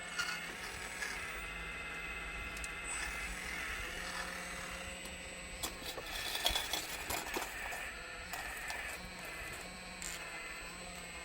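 Scale RC model of a Volvo 360L excavator working, its drive motors and pump whining steadily in several tones, with a burst of clicks and rattles about six to seven seconds in.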